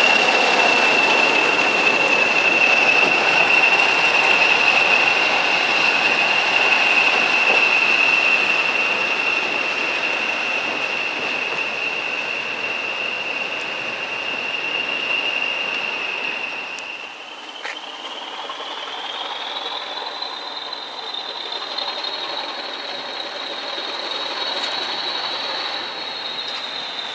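Class 40 diesel locomotive running with its characteristic high turbocharger whistle, a steady tone over the engine and wheel noise. About two-thirds of the way through, the sound drops quieter and the whistle glides up in pitch and holds as the locomotive draws away.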